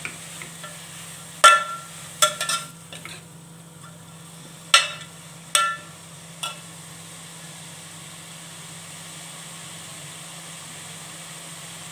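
Plastic spatula stirring shredded cabbage in an aluminium pot, knocking against the metal sides with short ringing clinks, about six of them in the first seven seconds. After that only a faint steady hum is left.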